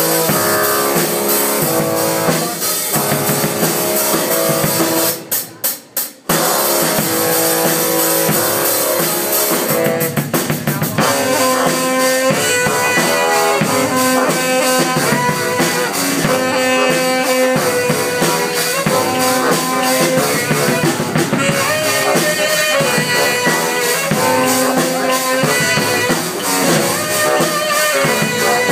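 Two saxophones and a drum kit playing a loud, driving funk groove. About five seconds in the band cuts off in a few quick stop-time stabs, then plays on.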